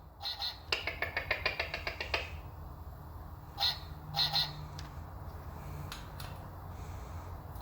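Duck-like quacks: two short ones, then a quick run of about ten rapid pulses, then three more short quacks about halfway through.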